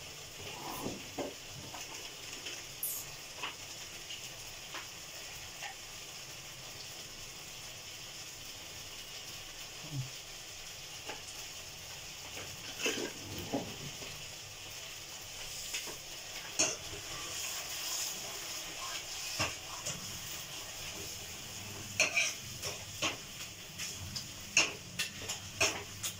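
Sarson ka saag sizzling steadily in a kadhai on a gas burner, with scattered small pops. In the last few seconds a steel ladle stirs it, scraping and knocking against the pan in quick sharp clicks.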